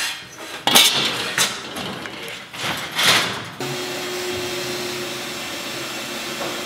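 Sheet-metal scraps and hand tools clanking and scraping as they are cleared off a metal-topped fabrication table, with several sharp clanks. About three and a half seconds in, this changes abruptly to a steady hum with a low steady tone.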